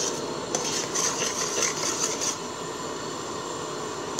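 A ladle stirring thick coconut-milk curry in an aluminium pot, scraping and rubbing against the pot for the first couple of seconds, then easing off, over a steady hiss.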